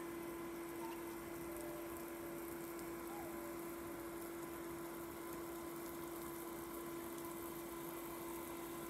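Irrigation water pump running with a steady one-pitch hum over an even hiss of flowing water.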